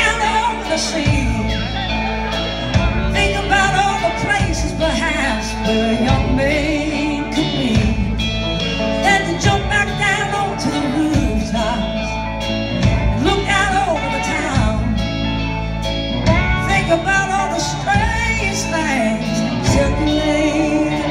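Live band playing a song with a singer: drums, bass, electric guitars and keyboards under a sung vocal line, heard through a large hall.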